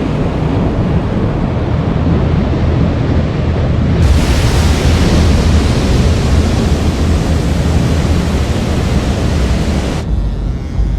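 Loud roar of breaking surf and rushing whitewater. It grows brighter and fuller about four seconds in and drops off abruptly near the end.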